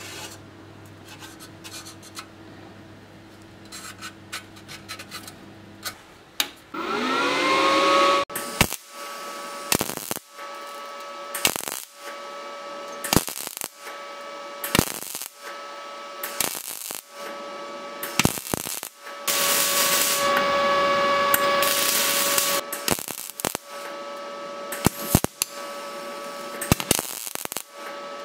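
Handheld power tool with a cut-off wheel spinning up with a quickly rising whine about six seconds in, then running at a steady whine. The wheel cuts into the helmet's rusted steel in bursts, with sharp clicks and scrapes and a longer spell of cutting noise about twenty seconds in.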